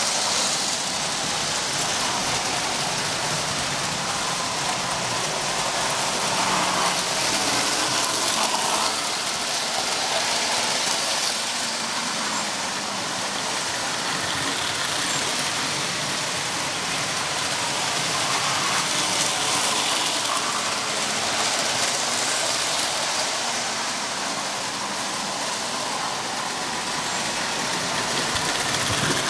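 O-gauge toy trains running on three-rail tubular track: a Lionel Illinois Central GP-9 diesel and a Marx 666 steam engine hauling hopper cars. Their electric motors whir and their metal wheels rattle over the rails in a steady clatter that swells a little as the trains pass close.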